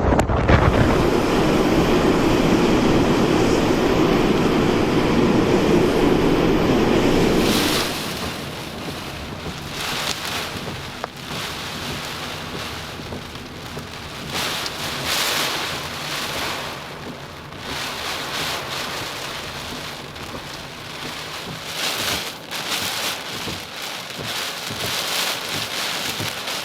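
Typhoon wind and rain, with strong gusts buffeting the microphone. A loud low rumble of wind noise stops abruptly about eight seconds in, leaving rain and wind that swell and fade in repeated gusts.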